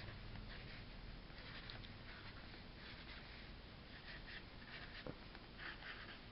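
Faint scratching of a black felt-tip permanent marker drawing short strokes on paper, over a steady low room hum.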